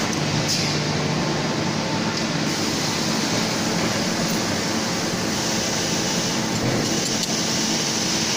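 Steady mechanical din of a factory assembly hall: machines and ventilation running, with a few brief faint hisses.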